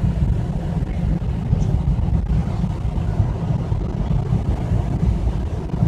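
Steady low rumble of a moving vehicle heard from inside the cabin: engine and tyre road noise.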